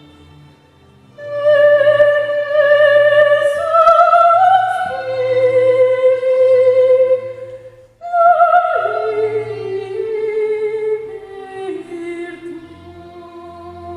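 A high female voice singing operatic phrases with wide vibrato on long held notes, over a low sustained accompaniment. The singing comes in about a second in and breaks briefly for a breath near the middle.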